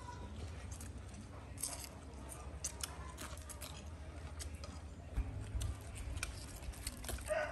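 Eating sounds: chewing and crunching with scattered small clicks of spoons against plates, over a steady low hum.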